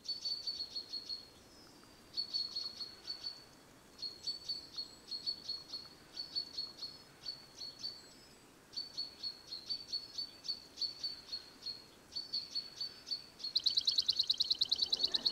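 Crickets chirping at one steady high pitch, in trains of rapid chirps about a second long with short pauses between. A faster, louder train comes near the end.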